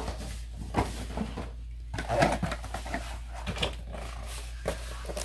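Cardboard-and-plastic toy boxes being handled and shifted: rustling, scraping and knocks, the loudest about two seconds in.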